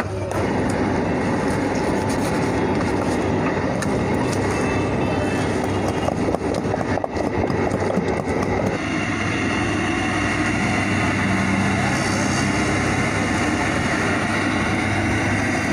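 Busy street-market ambience: steady traffic noise and indistinct chatter. Clicks and knocks of handling run through the first half, and the sound changes about nine seconds in.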